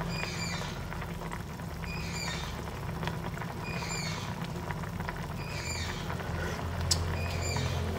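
Braising sauce of fish and pork skin bubbling and crackling steadily in a pan as it simmers down, over a low steady hum. A short, falling high call repeats about every two seconds.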